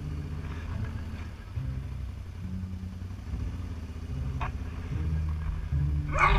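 ATV engine running as the quad rides along, its pitch rising and falling as the throttle changes. A brief, loud high-pitched sound cuts in right at the end.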